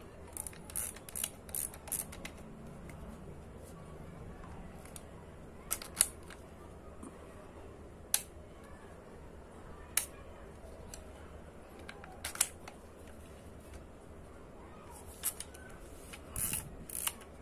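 Mechanical clicks from an Olympus XA-2 compact camera being handled: a quick run of several clicks near the start, single sharp clicks about every two seconds through the middle, and another cluster near the end.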